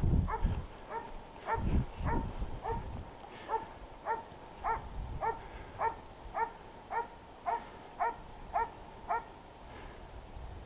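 Hunting dog barking in a steady rhythm, about two barks a second, stopping near the end. A low rumble sounds in the first two seconds.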